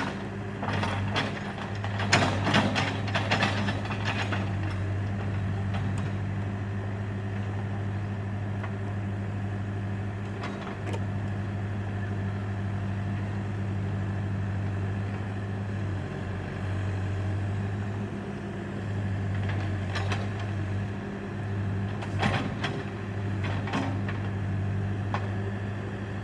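Backhoe engine running steadily, with sharp metallic clanks and knocks about two to four seconds in and again near the end.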